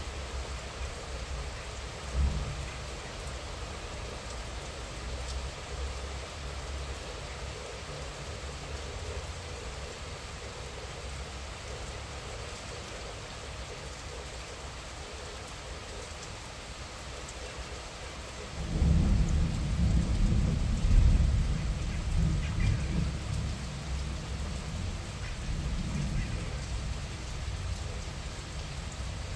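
Moderate rain falling steadily, picked up by a mobile phone's microphone. A short low thump comes about two seconds in, and a loud low rumble starts about two-thirds of the way through, lasting several seconds before easing off.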